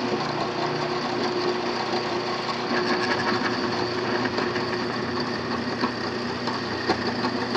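Drill press running steadily, its 1/4-inch carbide ball end mill starting a hole in the bottom of a stainless steel pot, cutting dry without coolant.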